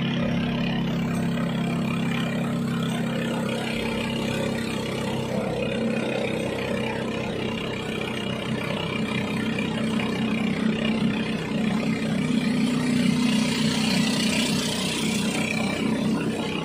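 Small boat's engine running steadily, driving the boat along at cruising speed. A hiss rises over it near the end.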